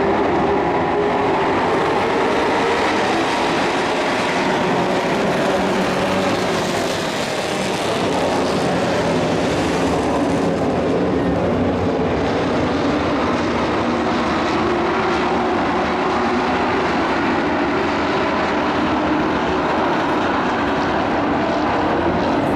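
A field of dirt-track racing trucks running at speed around the oval, several engines heard together, their pitch rising and falling as they accelerate and lift.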